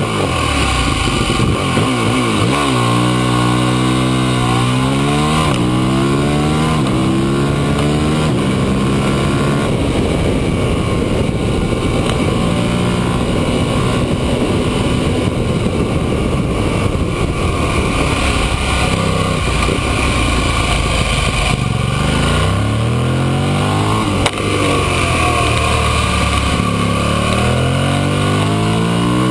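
A 1080cc Suzuki TL1000S V-twin motorcycle engine under hard acceleration, heard onboard: the revs climb and drop back at each gear change every few seconds, fall lower through a slower section midway, then climb through the gears again near the end. Wind rushes over the microphone throughout.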